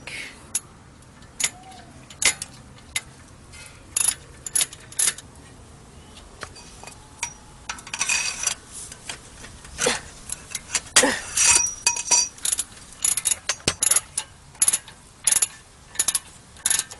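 A socket ratchet clicking and metal tools and parts clinking in irregular bursts as the brake caliper bracket bolts are backed out, with denser clusters of clicks about halfway through and again a few seconds later.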